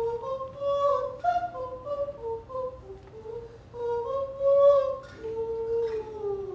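A voice humming a slow wordless tune, stepping between notes with short slides between them; the loudest note comes about two-thirds through, and a held note slides down near the end.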